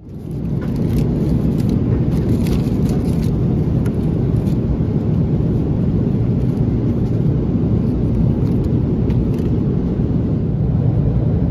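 Steady low rumble of a jet airliner's cabin in flight, the engines and rushing air droning evenly, with a few faint light clicks on top.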